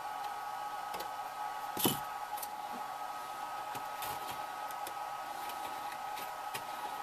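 Light clicks and taps of a clear plastic model canopy and its aluminium frame rail being handled and fitted with bolts, with one louder clack about two seconds in, over a steady background hum.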